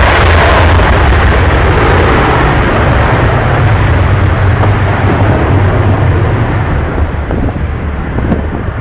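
Roar of a McDonnell Douglas MD-80's two rear-mounted Pratt & Whitney JT8D jet engines at takeoff thrust, very loud with a heavy low rumble, fading over the last few seconds as the airliner pulls away.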